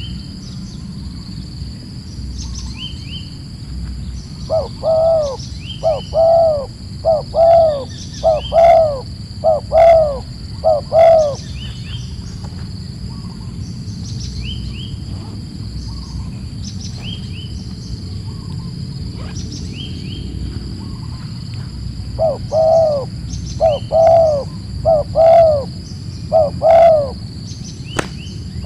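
A dove calling in two runs of short, arched coos, each run a quick series of notes. The first run comes about five seconds in and the second near the end. Under them are steady high-pitched insect tones and a low rumble, and there is a single sharp click near the end.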